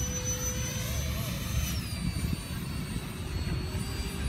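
Electric ducted fans of a radio-controlled flying car model whining in flight, a steady high whine that drops in pitch about two seconds in, over a low rumble.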